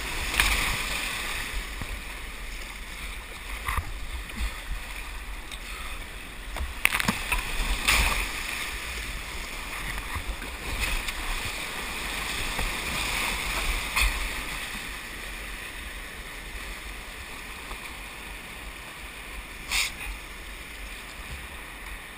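Whitewater rushing past a slalom kayak running rapids, a steady churn of water with a low rumble beneath. Sharp splashes come at irregular moments, the loudest about a third of the way in, as paddle strokes and waves strike the boat and throw water over the camera.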